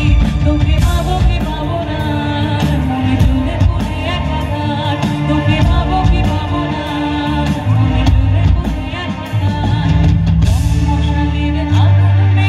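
Live band music played loud over a PA, with a woman singing into a microphone over a steady drum beat.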